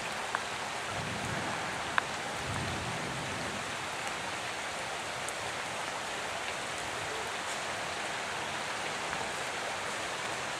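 Steady rain falling on floodwater and wet ground, an even hiss. Two sharp ticks of drops stand out near the start, the louder about two seconds in.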